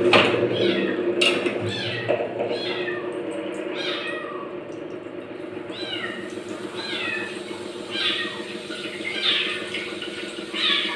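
A small black kitten meowing over and over, short falling calls about once a second, calling out while it searches for its owner. A steady low hum runs underneath.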